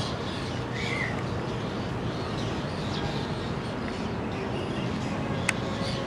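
Terns on the wires giving scattered short calls over a steady low rumble of traffic, with one sharp click near the end.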